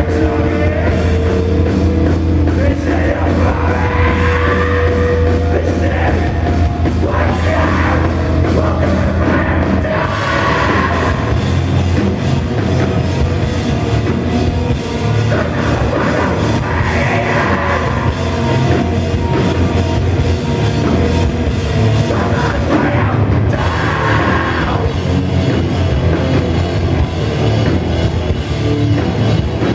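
Live heavy rock band playing loud, with electric guitars, bass and drums, heard from within the audience. A low note is held through roughly the first ten seconds, then the riff turns choppier and more rhythmic.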